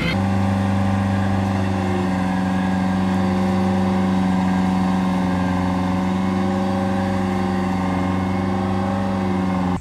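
Off-road 4x4's engine held at steady high revs, its pitch barely changing. It cuts in and cuts off abruptly.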